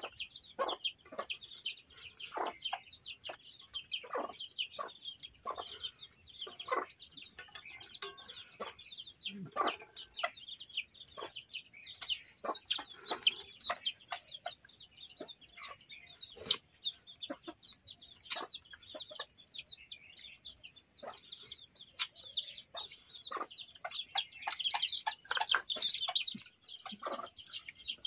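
Chickens clucking in short calls over a constant high chirping of small birds, with one sharp knock about sixteen seconds in.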